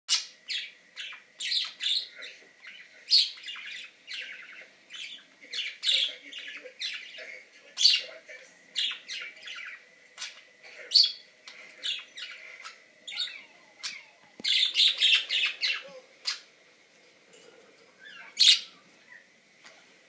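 Pet budgerigars chattering: a quick, irregular run of short, sharp chirps and squawks, with a dense flurry of calls about three quarters of the way through.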